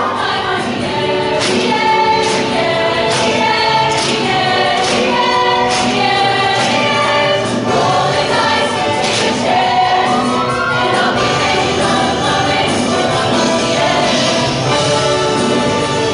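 Show choir singing in full voice over backing music, with a steady beat a little under a second apart for the first ten seconds or so.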